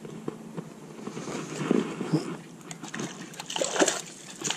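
Water splashing and lapping against rocks, with irregular small knocks and scrapes that grow louder about two seconds in and again near the end.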